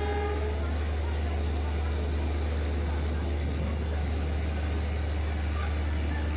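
Steady low rumble and running noise of a moving passenger train, even and unbroken.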